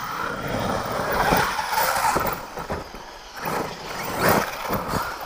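Radio-controlled monster truck driving on a dirt track, its motor revving up and easing off. It is loudest a little over a second in and again about four seconds in, with a lull around three seconds.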